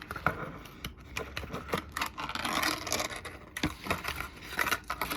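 Hands handling a crankbait fishing lure and its plastic packaging: irregular scraping, rubbing and small clicks, thickest about halfway through.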